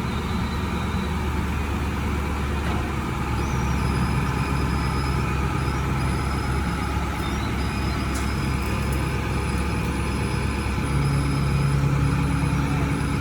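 A crane's engine running steadily under load, getting louder about eleven seconds in as it works harder.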